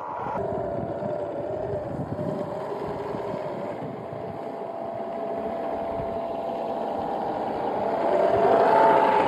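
3D-printed 1/8-scale RC Land Rover Discovery 5 model running through snow: a steady mechanical whine that rises in pitch and gets louder near the end as its wheels churn into deep snow.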